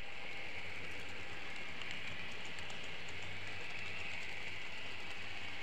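N-scale model train running along the track, heard from a camera carried on the train: a steady whirring hiss with faint light clicks. A low hum comes in about half a second in and fades near the end.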